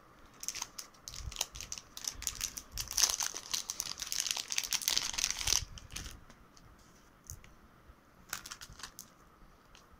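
Thin plastic packaging crinkling as it is handled, busy and dense for the first five and a half seconds or so, then only a few scattered crackles.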